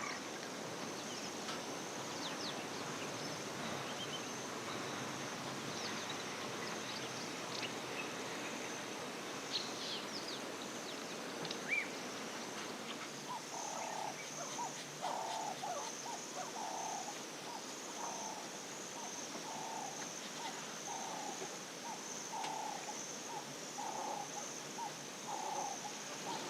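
Savanna bush ambience: a steady high insect trill with scattered short bird chirps. From about halfway, an animal gives a low call over and over, roughly once a second.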